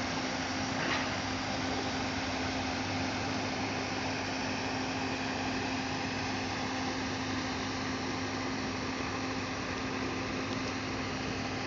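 Steady machine hum: a constant low tone and a fainter deeper hum over an even hiss, barely changing in level, with one faint brief rattle about a second in.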